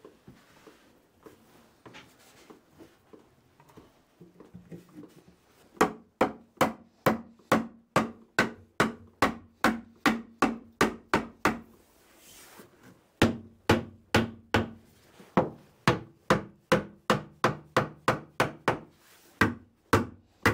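Hammer blows on a new oak engine bearer, about two to three a second, knocking it down over its studs to test the fit. The blows start about six seconds in and pause briefly about halfway through.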